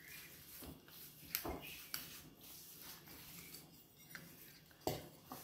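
A few faint metal clicks and knocks, three sharp ones, from a stainless-steel hand-press lemon squeezer being worked to squeeze lemon juice over a glass dish.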